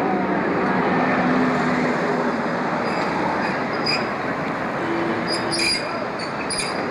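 Vintage streetcars rolling along street track: a steady rumble of wheels and running gear, with a few short high wheel squeals and clicks in the second half as the 1928 Milan streetcar passes.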